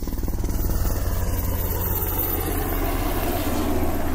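Intro sound effect: a steady, rapidly pulsing engine-like drone with a strong deep low end, swelling over the first second, then holding steady.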